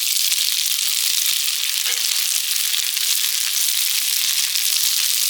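Food frying in a wok: a steady, high hissing sizzle with small scattered crackles.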